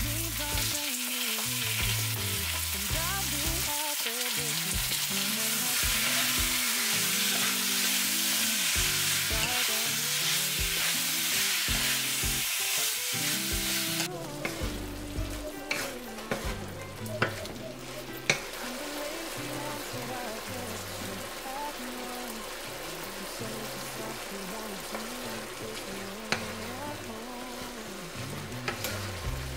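Diced chicken sizzling loudly in hot oil in a non-stick wok. About halfway through the sizzle drops sharply to a quieter frying of chicken and tomato, with a few knocks of a wooden spatula against the pan as it is stirred.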